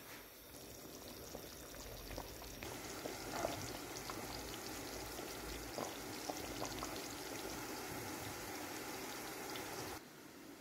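Chicken and pea stew in a thick tomato sauce simmering in a pan: a steady bubbling hiss with scattered small pops. It drops in level near the end.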